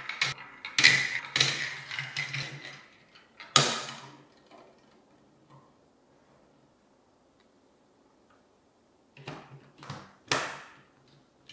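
Plastic marbles clattering and rolling through a VTech Marble Rush plastic marble-run track, with sharp clicks as they hit track pieces. There are two runs of clatter, the first lasting about four seconds, the second shorter about nine seconds in, with near quiet between.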